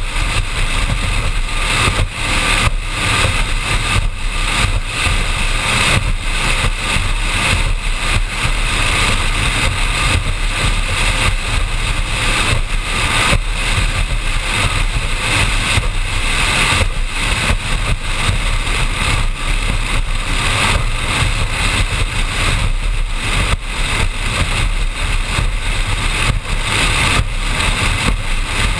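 Offshore powerboat running at speed across open water: a steady engine drone under a heavy rush of wind and water noise over the deck-mounted microphone.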